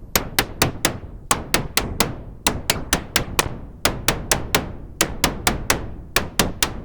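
PARATEK "КОСМИЧЕСКИЙ ШУМ" eurorack module, a Jupiter Storm-style square-oscillator noise source, giving out a run of sharp electronic clicks. They come about three to four a second, mostly in groups of four with short breaks, and each has a short decaying tail.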